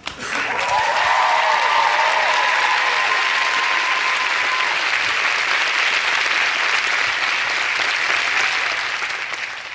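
Studio audience applauding and cheering, with a long high cheer over the first few seconds; the applause tails off near the end.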